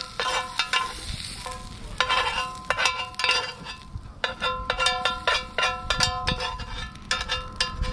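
Metal tongs tapping and scraping against a square black skillet as cooked maitake mushrooms are scraped out of it. The pan rings briefly after each of the many quick, irregular clinks, with short pauses about a second in and again around the middle.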